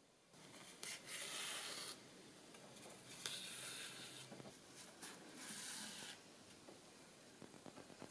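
Sewing thread being drawn by hand through wool fabric: three long pulls, each a soft hiss, with quieter rubbing and handling of the fabric between them.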